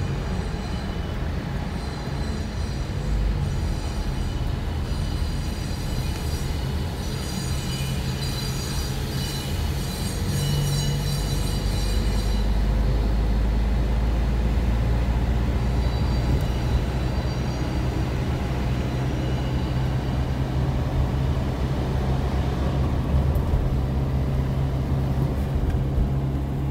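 Steady low rumble of a moving vehicle throughout. Thin high-pitched squealing tones ride over it from about 6 to 12 seconds in, and return more faintly around 16 to 20 seconds.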